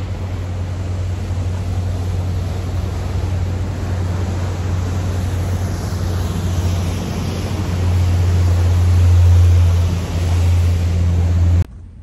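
Wind buffeting the microphone and rushing water on the open deck of a river ferry, over the steady low drone of the ferry's engine. The noise swells loudest a little past the middle and cuts off suddenly near the end.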